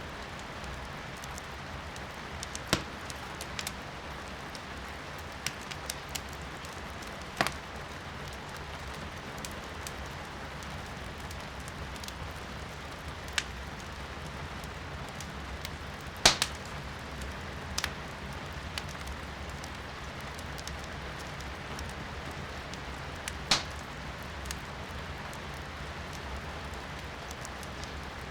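Wood fire crackling in a fireplace, with scattered sharp pops and snaps, the loudest about sixteen seconds in, over a steady hiss of rain heard from indoors.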